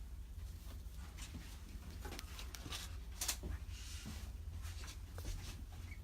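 Scattered small clicks and brief rustles, with a louder knock about three seconds in, over a steady low hum.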